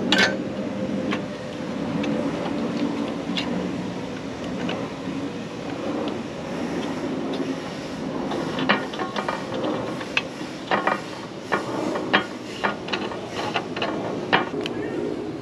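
Metalwork with a welding clamp and steel tubes: scattered sharp metal knocks and clicks, more frequent in the second half, over a steady low hum.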